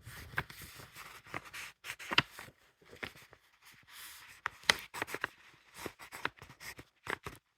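A 2.0 mm graphite-lead mechanical pencil writing on paper: a run of short scratchy strokes with sharp ticks between them.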